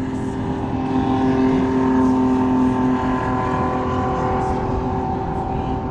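A motor engine running with a steady droning pitch that eases off slightly after about three seconds.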